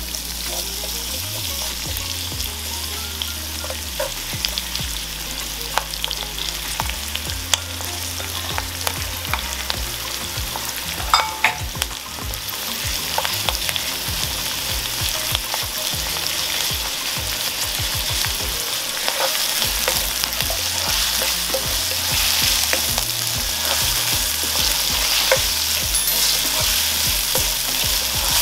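Diced onion and minced garlic sizzling in hot oil in a nonstick wok while a spatula stirs, scraping and tapping against the pan. The sizzle grows louder about halfway through, with a few sharper knocks of the spatula just before; the onion is being sautéed until translucent.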